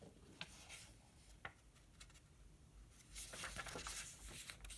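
Near quiet with a couple of faint clicks, then about three seconds in the light rustle of a paperback book's paper page being turned.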